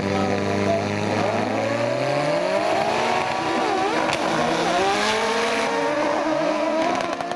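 Several autocross prototype buggies' engines held at revs on the start line, then revving hard as the cars launch off the grid together and pull away, many engine notes rising and bending over one another. A sharp click about four seconds in.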